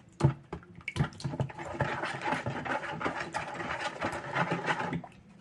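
A wet sauce of eggs and sour cream being mixed by hand in a bowl. The utensil knocks against the bowl a couple of times at the start, then there is a busy run of quick, wet mixing strokes.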